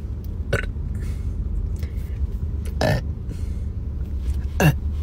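A woman burping on command: a few short separate burps about two seconds apart, the loudest near the end, falling in pitch. A steady low rumble of the car in traffic runs underneath.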